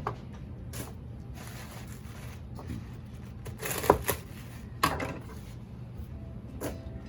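Knife chopping lacinato kale on a cutting board: a few irregular knocks of the blade, the loudest about four seconds in.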